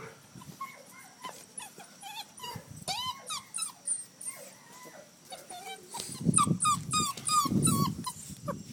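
Red Doberman pinscher puppy whining and yipping in many short high-pitched cries. The cries come faster and louder about six seconds in.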